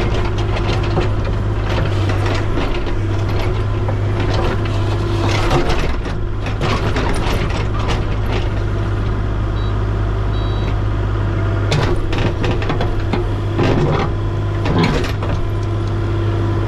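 A heavy engine running steadily with a low hum, with irregular knocks and clanks throughout.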